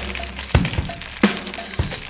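Background music: a steady drum-kit beat with kick and snare hits a few times a second.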